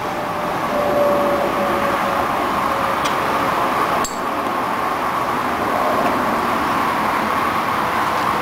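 A steady rushing noise, with a few faint metallic clicks from a wrench working the motorcycle's rear chain adjuster bolt, the clearest about four seconds in.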